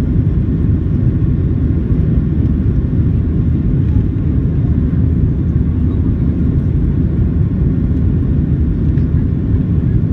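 Boeing 737-700 cabin noise heard from a seat over the wing during the climb just after takeoff: a steady, deep rumble of the CFM56-7B turbofan engines and the rushing airflow, with no change in pitch or level.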